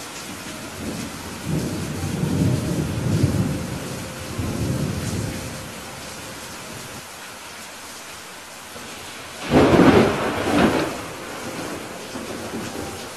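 Steady heavy rain with thunder: a low rolling rumble from about a second and a half in that fades after a few seconds, then a sharp, louder thunderclap about nine and a half seconds in that dies away over a second or two.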